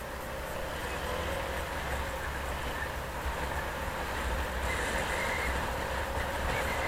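Steady low rumble and road noise of a vehicle in motion, heard from on board, growing louder as it gathers speed.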